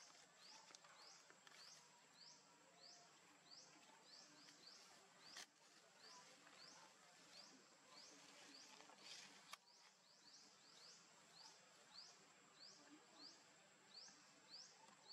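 Faint woodland ambience: a steady high insect whine with a short rising chirp repeating nearly twice a second, and a couple of soft clicks.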